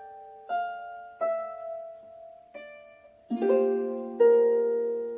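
Irish harp played solo: three single plucked notes that ring and fade, then a rolled chord about three seconds in and a fuller, louder chord a second later, left to ring.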